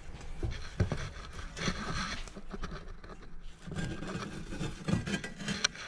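Irregular scraping and knocking from metal flue and cooker parts being handled and fitted on a Rayburn cooker.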